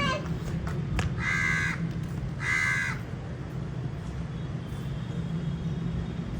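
A crow cawing: two harsh caws about a second apart, over a steady low background rumble.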